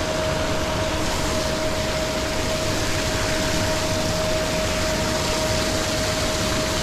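Pond aerators running steadily: a constant motor hum with a thin steady whine over the rush of churned water.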